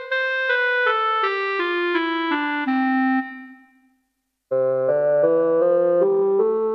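Yamaha PSS-F30 mini keyboard playing a descending run of single held notes in one preset voice, about three notes a second, which dies away about three and a half seconds in. After a short silence a different voice starts a new run of notes with a fuller, lower tone.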